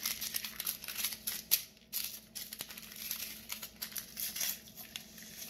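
Small paper packets of raw sugar crinkling and tearing as they are opened and emptied into a plastic food-chopper bowl: a run of quick papery crackles.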